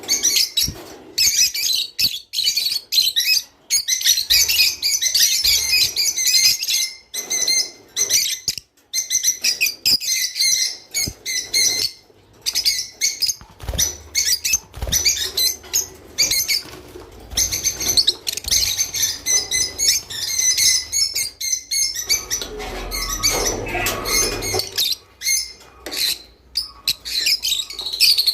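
Java sparrows chirping and singing in dense, chattering bouts with brief breaks. This is breeding-season song of the kind played to caged birds to encourage mating. A lower rustling sound comes in about three quarters of the way through.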